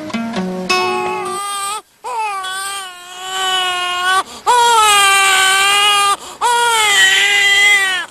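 Infant crying in three long, loud wails with short breaths between, starting about two seconds in; plucked guitar music stops just before.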